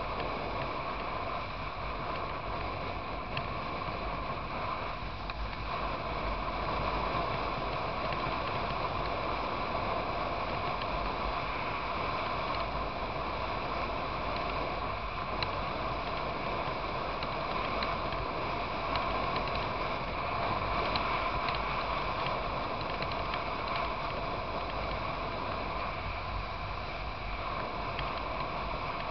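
Motorcycle riding at a steady road speed: a constant engine drone mixed with wind rush.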